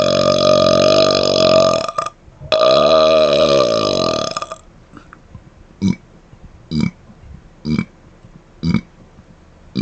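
A man belching: a long, loud burp that stops about two seconds in, then a second long burp whose pitch wavers. These are followed by five short, quieter closed-mouth burps about a second apart.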